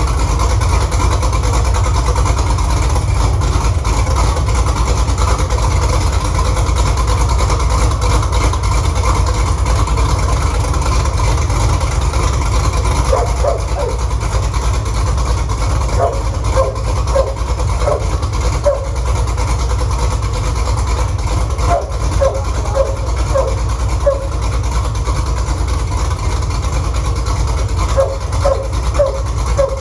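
6.2-litre LS V8 engine idling steadily in a first run after being swapped into a 1968 Camaro.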